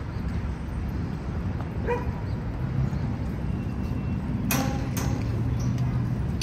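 A dog barking a few times: a short pitched yelp about two seconds in, then two sharper barks about half a second apart, over the steady low rumble of city street traffic.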